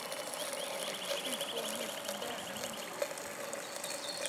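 Outdoor ambience by the water: a rapid high trill of about ten ticks a second for roughly two seconds, over a steady faint hum and faint distant voices.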